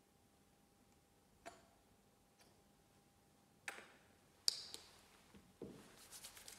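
A few sparse, light clicks and taps of a metal chalice and paten being handled on the altar, the sharpest about four and a half seconds in, over a faint steady hum in a near-silent church.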